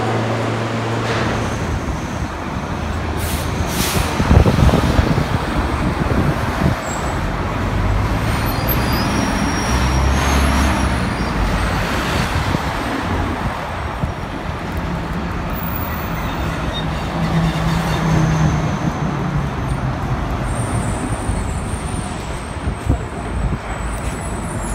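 Street traffic: a diesel box truck and city buses driving past with engines running, with a brief loud burst about four seconds in that sounds like air brakes releasing. It opens with the last couple of seconds of a subway train's steady hum in the station before the sound switches to the street.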